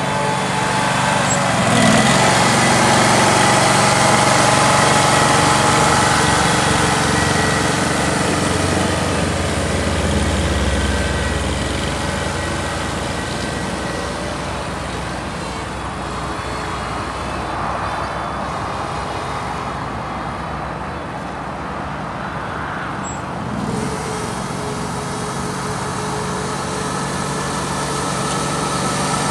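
Ride-on triplex reel mower running steadily as it cuts, its engine and spinning reels heard together. The sound grows quieter through the middle as the mower moves off and swells again near the end as it comes back.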